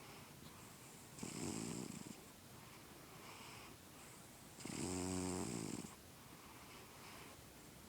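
Domestic cat snoring in its sleep: two louder snores about a second long, one near the start and one past the middle, with softer breaths between. The vet has found the cat healthy, so the snoring is harmless.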